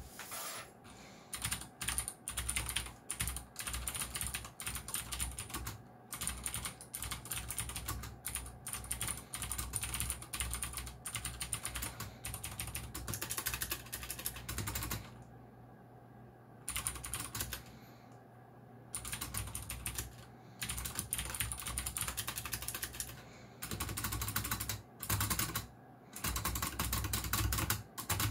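Typing on a Geekstar × Deck Hassium Pro 108 mechanical keyboard with clicky blue switches: fast runs of key clicks in bursts, with a short pause about halfway through.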